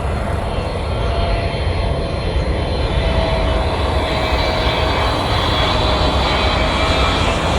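Jet airliner's engines, a loud rumble with a steady whine over it, growing louder over the first few seconds as the aircraft comes closer.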